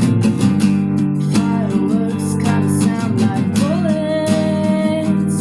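Acoustic guitar music: strummed chords under a melody line that slides up to a long held note about three and a half seconds in.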